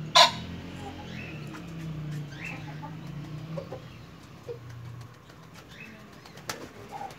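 Male fantail pigeon cooing during its courtship display: a low droning coo for the first few seconds and again briefly past the middle, with wing rustling. A sharp snap is the loudest sound, a moment in, with another near the end, and a few short rising chirps sound over it.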